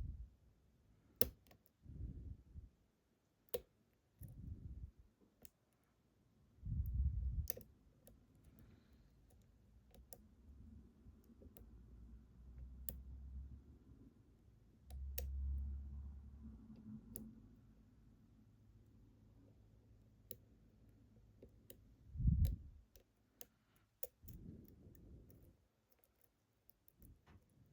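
Irregular faint clicks of a lock pick working the pins of a Ruko 600 lock, mixed with several low thumps; the loudest thump comes about 22 seconds in.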